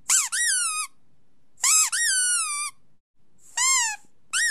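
Rubber squeaky toy squeaking, played for the dogs to hear: short high squeaks that rise and fall in pitch, mostly in quick pairs about every second and a half, with a longer squeak starting near the end.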